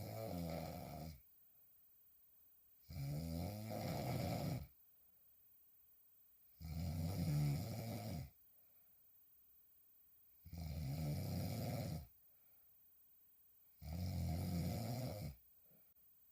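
A woman snoring hard while sleeping on her back: five snores, each about a second and a half long, coming roughly every three and a half to four seconds, with quiet between them.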